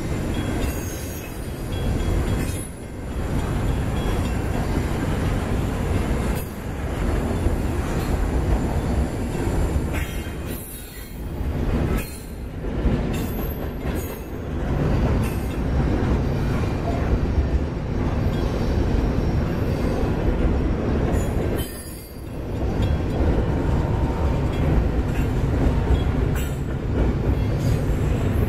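Double-stack intermodal container cars rolling past on steel rails: a steady, loud rumble of wheels on track that dips briefly several times as the cars go by.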